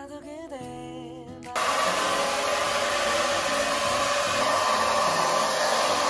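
Background music, then about one and a half seconds in a hand-held hair dryer starts abruptly and runs loud and steady, a rush of air with a constant whirring tone, covering the music.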